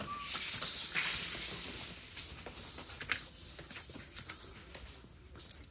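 A hiss that fades away over a few seconds, with a few light clicks and taps.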